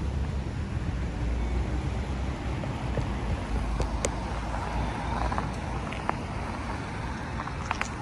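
City street traffic: a steady hum of passing cars with a low rumble, and a few brief clicks about halfway through and near the end.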